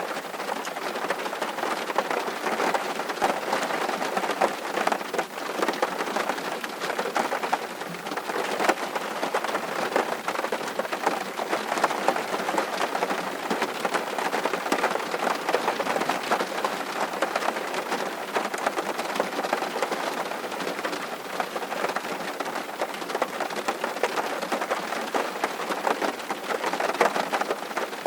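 Steady rain falling on surfaces, an even patter of many drops.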